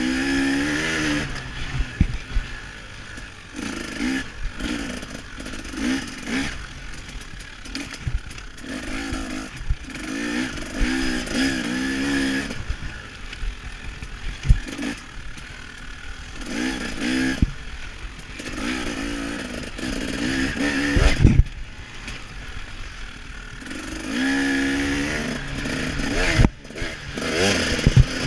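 KTM 300 XC-W two-stroke dirt bike engine revving up and dropping back again and again as the rider rides a motocross track, with knocks and clatter from the bike, loudest about two-thirds of the way through, heard from a chest-mounted camera on the rider.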